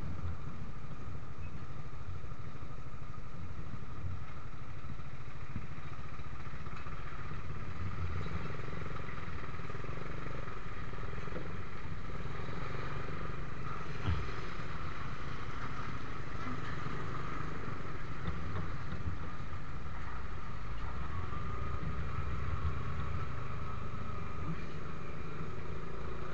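Motorcycle engine running steadily under the rider, with a low rumble throughout. A single short knock comes about 14 seconds in.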